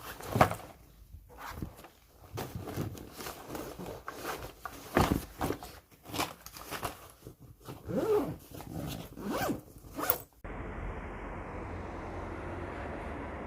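A run of short, quick scraping and rustling handling noises for about ten seconds, then a sudden cut to a steady low hiss.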